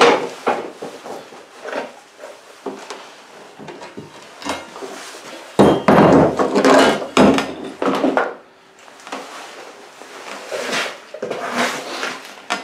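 A flat steel plate handled on a wooden workbench: it is picked up, set down and slid, with clanks and scrapes. The loudest clatter comes about six seconds in, and a second, smaller round near the end.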